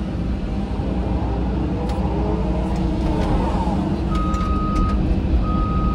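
Caterpillar 313 hydraulic excavator's diesel engine running, heard from inside the cab, with a hydraulic whine gliding up and down near the middle. About four seconds in, the machine's warning beeper starts sounding in a slow series of steady high beeps.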